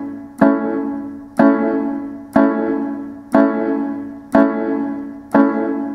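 Keyboard playing an A major chord on the offbeat, struck six times about once a second, each chord ringing and fading before the next.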